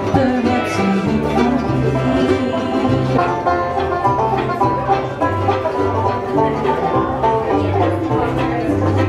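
Live bluegrass band playing: banjo picking over a moving upright bass line, with acoustic guitar and fiddle.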